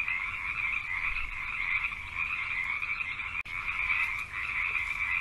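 Dense, steady chorus of many frogs calling together, briefly cutting out about three and a half seconds in.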